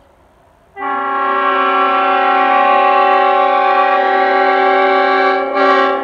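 Leslie S3P (Supertyfon) three-chime air horn, bells 25, 37 and 55, blown at 120 psi. It sounds one long, steady chord that starts abruptly about a second in, surges briefly louder near the end, and then begins to fade.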